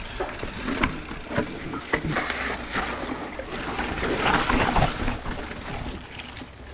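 Mountain bike rolling over a rough dirt trail: tyres crunching, with scattered clicks and knocks from the bike, busiest about four to five seconds in.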